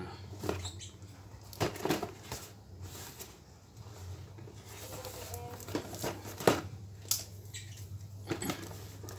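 Cardboard toy box being handled: scattered knocks, taps and rustles as it is turned over and set down on a tiled floor, the sharpest knock about six and a half seconds in.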